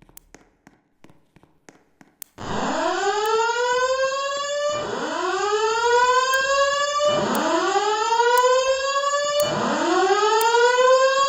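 Fire alarm voice-evacuation system sounding its evacuation whoop tone: a loud rising sweep that repeats four times, each a little over two seconds long, starting about two seconds in after a short quiet with faint clicks.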